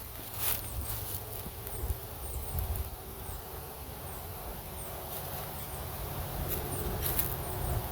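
Outdoor background: a steady low rumble with a few short clicks or slaps, and faint high chirps recurring throughout.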